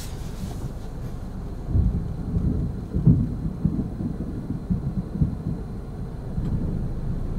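Thunder rumbling low and unevenly from about two seconds in, loudest near three seconds, over a steady low background rumble.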